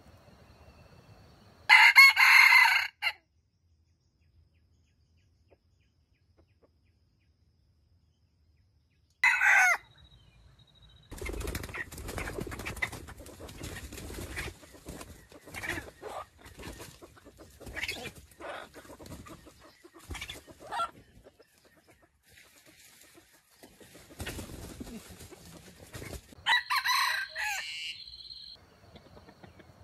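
Red junglefowl rooster crowing three times in short crows: a few seconds in, about ten seconds in, and near the end. Fainter rustling and scuffling in the leaf litter comes in between.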